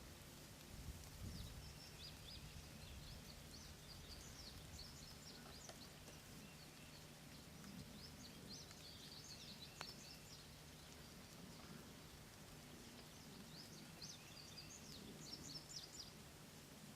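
Faint songbird song: three bouts of rapid high chirps over a low steady hum.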